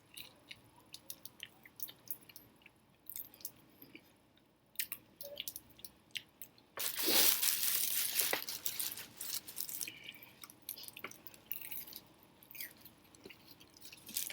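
Close-miked chewing and mouth sounds from someone eating, with soft wet clicks throughout. About seven seconds in comes a louder stretch of crunching lasting a couple of seconds.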